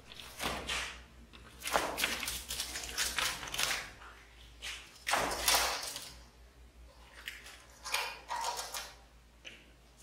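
Irregular short scuffles and light taps, coming in a few clusters, as cats paw at a barred window and a bird moves about at it.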